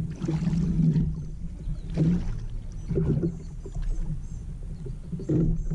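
Water sloshing and knocking against a plastic fishing kayak's hull in uneven bursts, over a steady low rumble.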